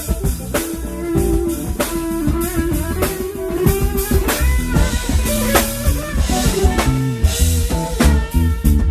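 Live band playing an instrumental: a drum kit with steady kick and snare hits under guitar.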